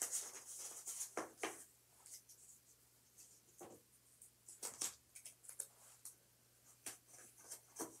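Faint, scattered rustles and small taps of hands peeling stickers off their backing and handling cardboard toilet paper rolls.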